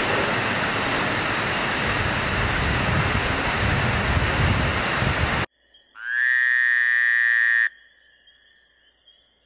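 Steady rushing noise of a railway station platform, which cuts off suddenly about five and a half seconds in. Then a synthesized electronic tone swells in, rising slightly at its start, and sounds for about a second and a half. It leaves a faint high hum.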